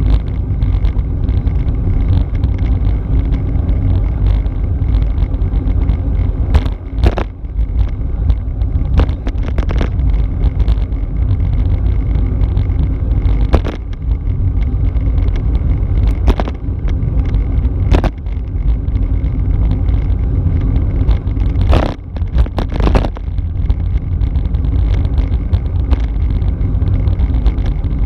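Wind rushing over the microphone of a camera on a road bike at about 30 km/h, a loud steady low rumble with a steady hum under it. Several sharp knocks break through now and then, a pair about 7 s in and a cluster about 22 s in.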